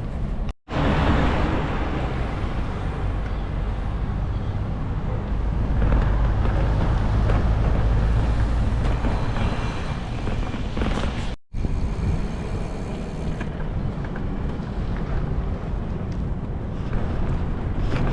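Wind buffeting the microphone of a camera on a moving bicycle: a steady deep rumble with a hiss above it. The sound cuts out briefly twice, about half a second in and again about eleven seconds in.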